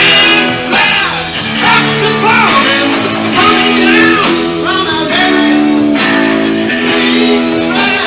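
Rock band playing live: electric guitar and drum kit, with a sung vocal line over them.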